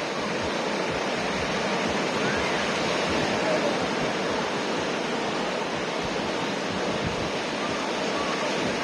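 Steady wash of ocean surf breaking on a beach, with faint voices in the distance.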